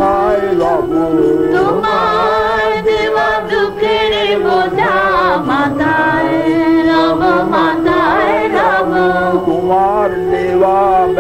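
Bengali devotional kirtan: singing of a wavering, ornamented melody over a steady held drone.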